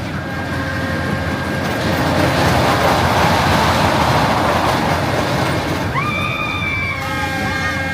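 A fairground loop ride's train running around its circular track, with a rushing rumble that swells and fades in the middle. About six seconds in, a high sustained tone with gliding pitch joins in.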